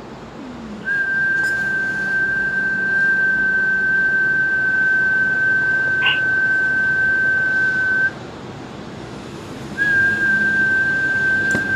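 A steady, high, pure tone held at one pitch for about seven seconds. It cuts off sharply, then comes back about two seconds later.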